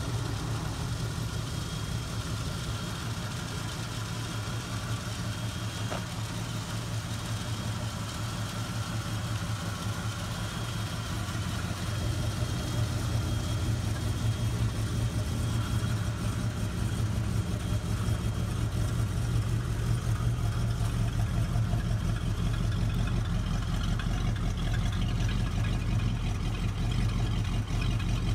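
1970 Ford Mustang Mach 1's 351 V8 idling steadily through its original exhaust. It grows louder about twelve seconds in, heard closer to the tailpipes.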